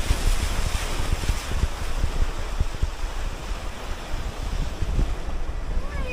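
Small sea waves breaking and washing up the shore, with wind buffeting the microphone in a low, uneven rumble.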